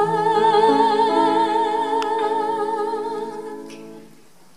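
A woman's voice holding the song's final note with a wide vibrato over sustained accompaniment chords. Voice and chords fade out about four seconds in.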